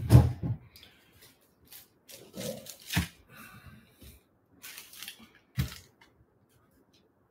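Off-camera handling noises: a heavy thump at the very start, then a few scattered knocks and light rustles as objects are moved about.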